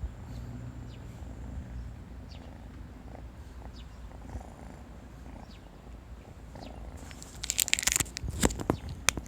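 Kittens purring steadily while they eat, with faint small ticks. About seven seconds in comes a loud scratchy clatter with several sharp clicks.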